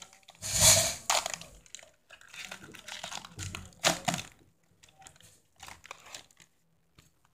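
Foil Pokémon booster-pack wrapper crinkling and tearing as it is ripped open, loudest about half a second in and again around four seconds, then only faint rustling and small clicks of handling the cards.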